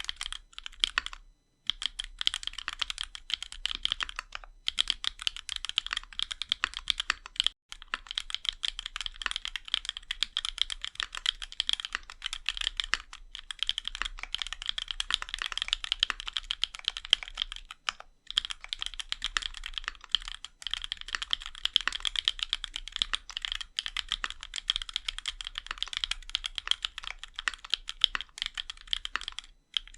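Continuous fast typing on a CannonKeys Onyx custom mechanical keyboard with a brass plate, RAMA WORKS Duck switches with two-stage 62 g springs, and GMK keycaps: rapid key clicks with a few short pauses.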